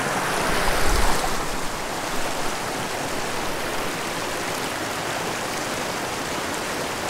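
Small mountain creek running shallow over rocks and riffles, a steady rushing of water.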